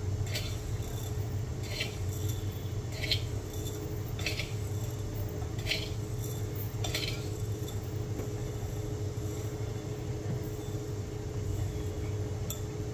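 Light metallic clinks of kitchen utensils, about one every second and a half for the first seven seconds and once more near the end, over a steady low hum.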